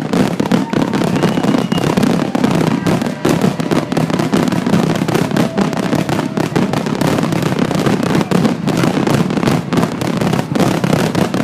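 Fireworks finale barrage: aerial shells bursting in a rapid, unbroken string of booms and crackling, many a second, with no pause.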